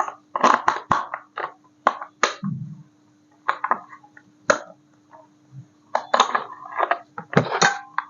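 Irregular clicks, knocks and rattles of a plastic RC toy crane and its packaging being handled, over a faint steady hum.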